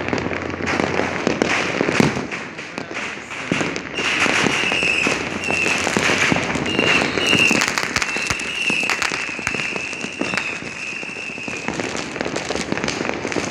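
Fireworks and firecrackers going off all around, a dense irregular run of bangs, pops and crackle. From about four seconds in until near the end, a high wavering whistle sounds over them, breaking off and starting again several times.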